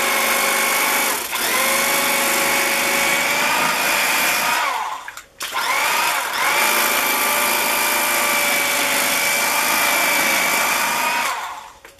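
Electric carving knife running, its reciprocating serrated blades sawing through a block of foam: a steady motor whine that cuts out about five seconds in, starts again a moment later rising up to speed, and stops near the end.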